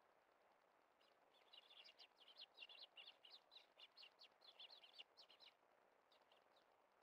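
Eurasian tree sparrows chirping, a rapid run of short, high calls starting about a second in and lasting about four seconds, then a few fainter chirps.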